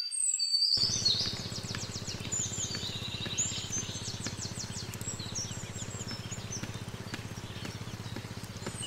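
Small songbirds chirping and trilling in quick high runs, over a steady low background rumble that comes in about a second in.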